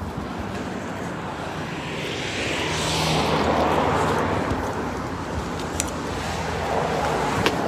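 A vehicle passing, its noise swelling to its loudest about three to four seconds in and then easing off, over a steady low hum.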